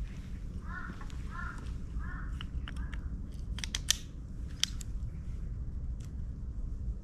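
A bird calls four times in quick succession, each call a short arched note about half a second apart. Then comes a cluster of sharp clicks about four seconds in, the loudest sound, and a single click a moment later, as trekking poles are adjusted and their locks snapped.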